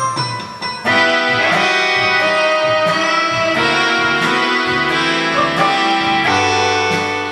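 Instrumental interlude of a song's backing track between sung verses. After a quieter first second, sustained ensemble chords come in about a second in and carry on steadily.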